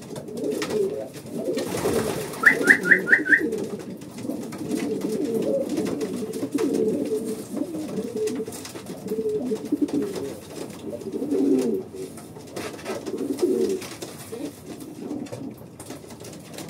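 Racing pigeons cooing continuously in a loft, many low calls overlapping, with a short run of five quick high chirps about two and a half seconds in.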